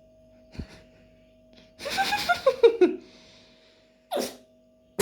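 A person making a strange, breathy vocal noise at a puppy, about a second long, its pitch sliding downward. A short knock comes before it and a brief breathy puff near the end.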